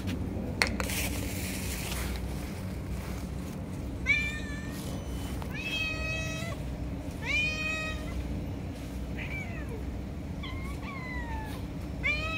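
Stray cats meowing repeatedly, begging for food: about six separate meows, mostly in the second half. There is a sharp click about half a second in.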